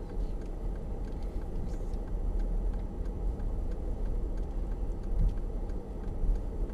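Cabin noise inside a Mercedes-Benz 4x4 rolling slowly over cracked tarmac: a steady low rumble of engine and tyres, with faint light ticks scattered through it.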